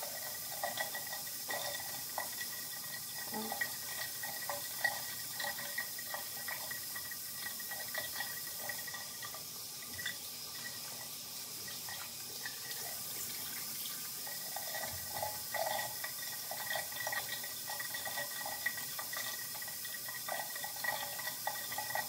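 Water running from a bathroom tap into the sink, with irregular splashing as handfuls of water are scooped up and rinsed over the face to wash off a cleansing cream.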